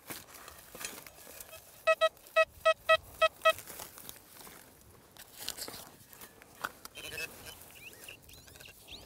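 Metal detector beeping on a buried target: a quick run of about seven short electronic beeps at one pitch, about two seconds in. Around them, faint scraping and rustling of dry soil and straw stubble.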